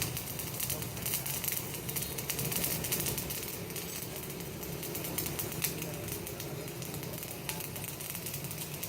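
Electric welding arc crackling and ticking irregularly over a steady low hum.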